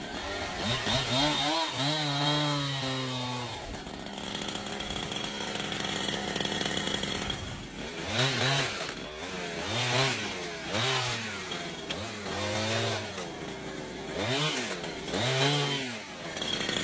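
Chainsaw engine revving, its pitch rising and falling over and over, with a steadier stretch in the middle.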